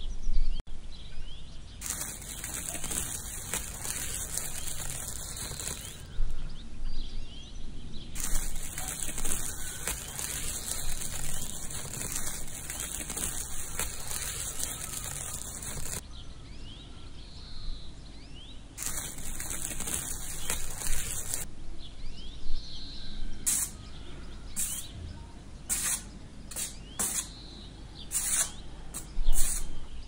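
Birds chirping in the background, with long stretches of high, steady hiss, and a run of short, sharp scrapes or ticks in the last several seconds.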